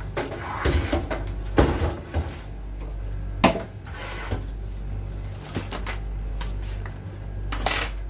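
Knocks and scrapes of a microwave oven's metal case being turned around on a wooden workbench, several separate knocks, the sharpest about three and a half seconds in.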